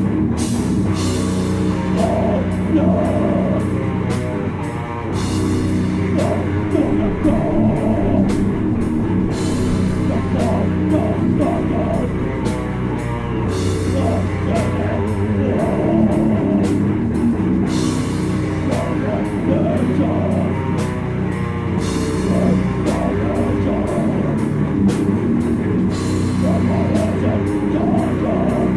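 Death metal band playing live: heavily distorted guitars and bass over drums, with frequent, regularly spaced snare and cymbal hits.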